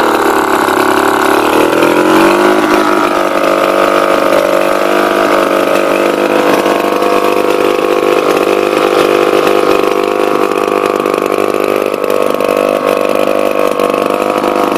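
1941 Fichtel & Sachs 1.5 hp two-stroke stationary engine running. It slows over the first second or so and picks back up about two seconds in as the throttle is worked, then runs at a steady speed.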